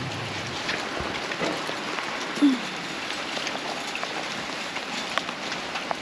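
Heavy rain pouring steadily, with scattered taps of drops close by; a brief squeak about two and a half seconds in.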